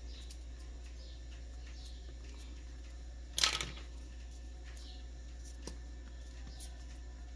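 Quiet handling of small sculpting tools and clay on a worktable: one short clatter about three and a half seconds in, like a small tool set down on the tabletop, and a few faint ticks, over a steady low hum.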